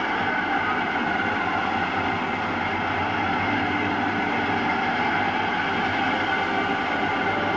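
Model railway train running past close by on the layout track: a steady rolling noise of the coach wheels on the rails with a motor whir, even throughout.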